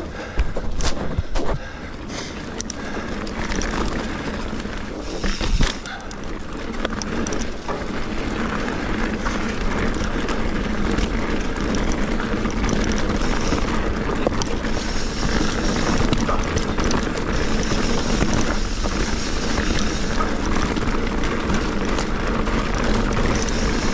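Mountain bike riding fast down a dirt singletrack: steady rolling noise of the tyres on the trail, with a few sharp knocks from bumps in the first six seconds, the hardest about five and a half seconds in.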